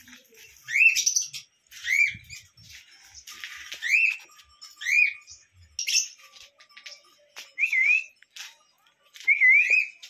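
Small pet parrots (lovebirds and cockatiels) calling: short, loud whistled chirps that sweep upward, roughly one a second, with a couple of wavering two-part calls near the end.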